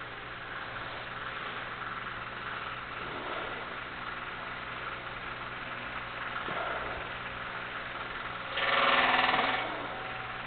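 An ox giving a low rumbling 'ronco', with one loud, drawn-out call lasting about a second near the end.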